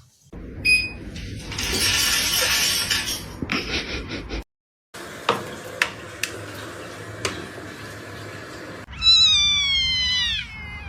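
Domestic cat meowing: one long, high meow that falls in pitch, about nine seconds in. Before it come rustling noise and a few sharp clicks.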